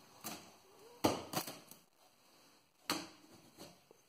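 Knife cutting through the packing tape on a cardboard box: a few short, sharp cuts, the loudest about a second in and another near the end.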